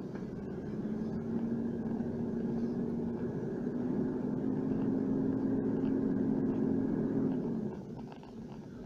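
Four-wheel drive's engine and tyre rumble heard from inside the cab while driving a dirt track: the engine note holds steady, steps up a little partway through, then eases off and quietens near the end.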